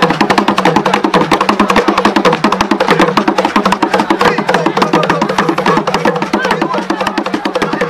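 Chewa Gule Wamkulu drums playing a fast, dense beat for masked dancers.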